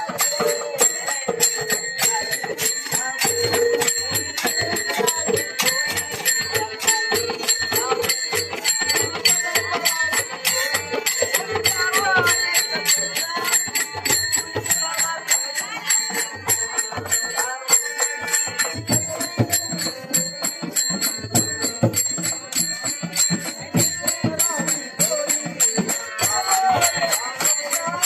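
Instrumental music with a continuous jingling of small bells over rapid, even percussion strokes.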